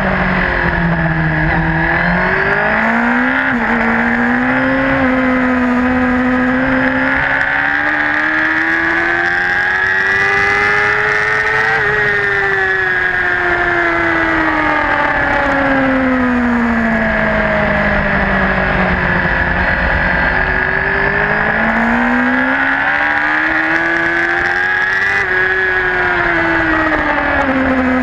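A racing superbike's engine, heard from on board, under load through corners. Its note climbs slowly to a peak about twelve seconds in and falls away over the next several seconds, then climbs and falls again near the end.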